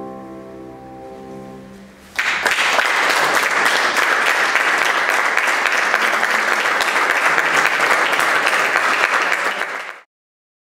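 The last held chord of soprano voice, flute and piano fades out. About two seconds in, an audience starts applauding loudly and steadily. The applause cuts off suddenly near the end.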